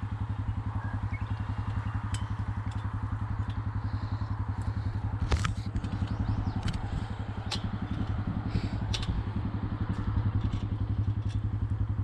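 Yamaha Rhino side-by-side's engine idling steadily, with a few sharp knocks of a hammer driving fence staples, the loudest about five seconds in.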